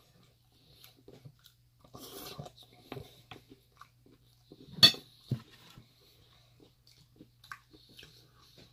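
Eating sounds: a metal fork clicking and scraping in a large bowl, with quiet chewing. There is one sharp clink of the fork on the bowl about five seconds in, then a softer one.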